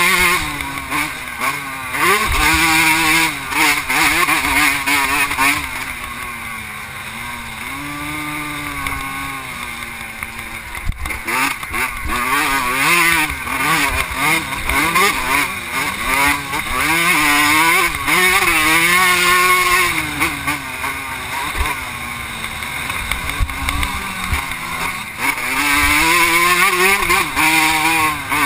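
Vintage 125cc two-stroke motocross bike engine racing, its note rising and falling over and over as the throttle is opened and shut and gears change, easing off twice for softer stretches.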